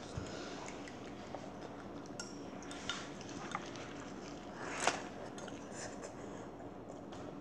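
Faint chewing of a crispy, flaky samosa-like pastry, with a few small clicks and a short louder noise about five seconds in.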